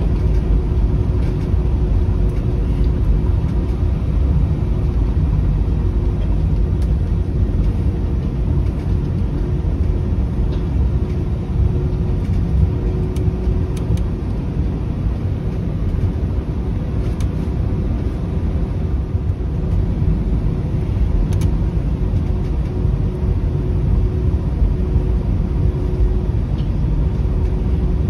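Cabin noise inside an Airbus A320 taxiing: a steady low rumble from its IAE V2527 engines at idle and the rolling airframe, with a faint steady hum over it.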